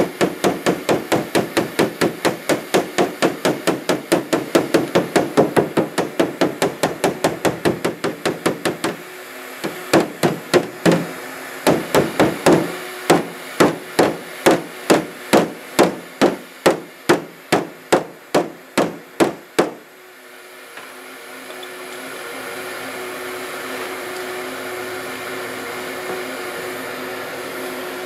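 Body hammer rapidly tapping down a dented aluminum hood panel, about five light blows a second. After a brief pause around nine seconds in, it resumes more slowly with sharper blows until about twenty seconds in. A heat gun's steady blowing hum then rises and holds.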